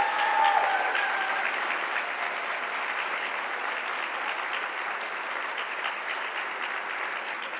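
Large seated audience applauding steadily, with a voice calling out over the clapping in the first second and a half.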